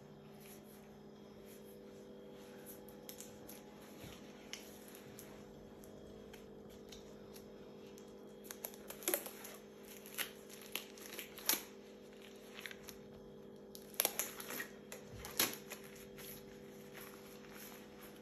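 Latex examination gloves rubbing and crinkling against each other, then stretched and peeled off the hand, with a run of sharp crackles and snaps in the second half.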